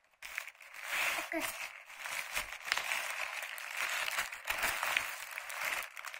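Black plastic bag crinkling and rustling as it is pulled open around a coil of network cable, a steady run of small crackles.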